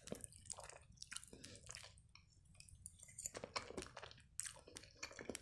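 Faint chewing of a mouthful of food, a run of small irregular mouth clicks and crunches.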